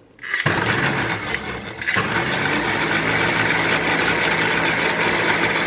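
Electric mixer grinder switched on about half a second in and running steadily at speed, its blades whizzing soaked almonds and water into almond milk in the stainless steel jar.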